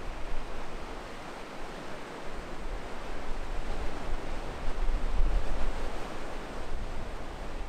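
Choppy sea surf washing and breaking against a pier wall, with wind buffeting the microphone; the low rumble of the wind swells about five seconds in.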